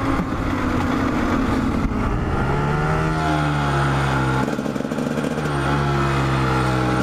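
Dirt bike engine running under way on the road, its pitch rising about two and a half seconds in, dipping briefly just past the middle, then holding steady. Wind rushes over the microphone.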